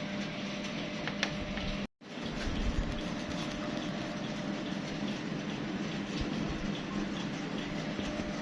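Steady rumbling background noise with a faint hum, cutting out completely for a split second about two seconds in.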